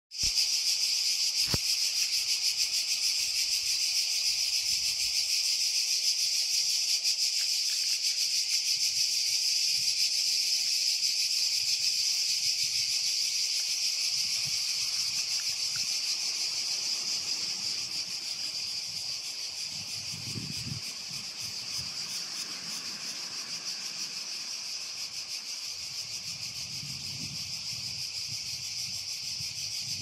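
Chorus of cicadas singing steadily: a dense, high, even buzz with a fast fine pulsing, growing somewhat fainter over the second half.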